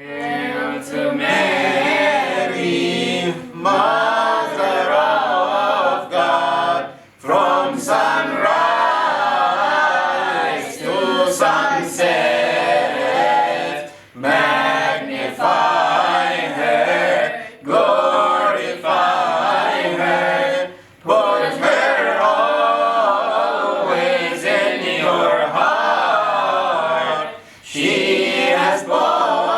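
A group of children and adults singing a hymn together in sustained phrases, with brief breaks between lines.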